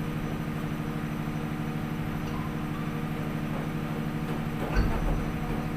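Fishing vessel's machinery humming steadily, with a single low thump about five seconds in.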